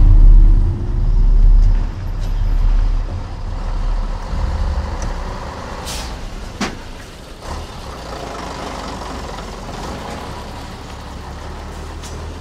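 A heavy road vehicle's deep engine rumble, loudest at first and fading over the first few seconds into a steady low traffic hum. A couple of sharp clicks come midway.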